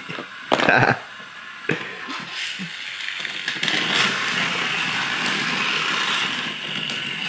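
Small electric motor of a battery-operated toy car running along a flexible plastic track, building up over the first few seconds and then holding steady. A brief clatter comes about half a second in.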